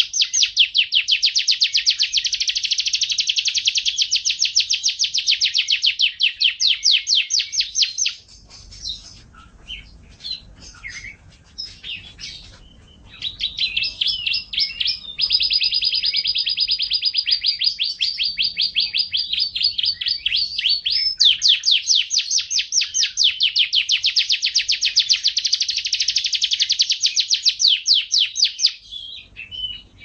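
Domestic canary singing: long, fast trills of rapidly repeated high notes, broken about eight seconds in by a few seconds of scattered chirps, then long trilled song again until near the end.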